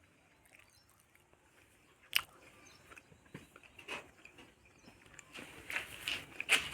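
Livestock munching dry fodder close by: scattered crunches and rustles that start about two seconds in and come more often near the end.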